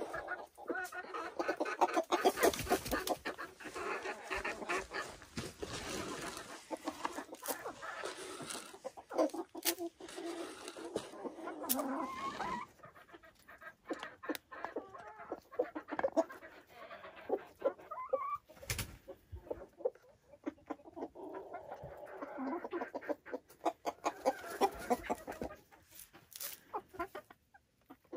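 A small flock of Silkie chickens clucking and chattering softly as they forage. The calls are dense in the first half, thin out, and pick up again later, with short sharp clicks from pecking and scratching in the wood shavings, one louder click about two-thirds of the way through.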